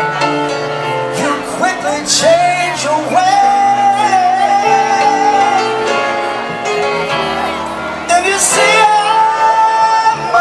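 Live band music with a lead singer, amplified through the stage speakers. The singer holds two long notes, one about three seconds in and another near the end, over steady chords and bass.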